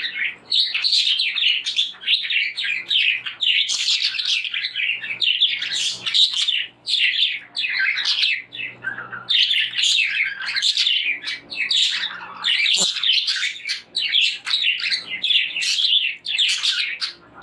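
Budgerigars chirping in a dense, unbroken stream of short, high calls and quick pitch glides.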